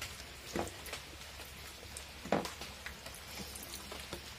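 Faint eating sounds: a boy chewing and handling a fried singara pastry, with a few short soft clicks, the clearest a little past two seconds in.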